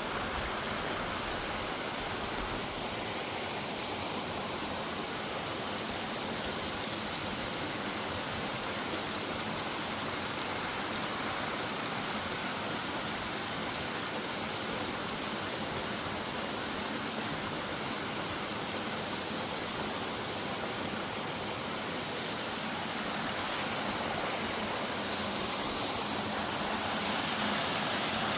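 Steady rush of running stream water, an even hiss that does not change.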